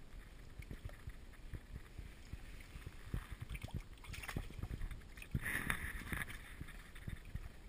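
Water splashing and sloshing in an ice-fishing hole as a brown bullhead thrashes at the surface, with scattered low knocks. The loudest splash comes about five and a half seconds in.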